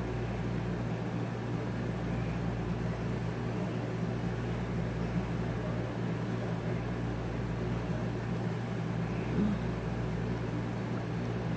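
Air conditioner running noisily: a steady low hum with an even hiss over it.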